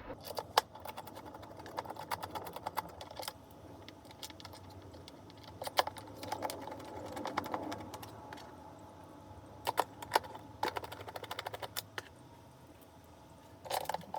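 Runs of small, quick clicks and ticks as screws are driven in by hand to fit the wheels to the pressure washer's plastic base.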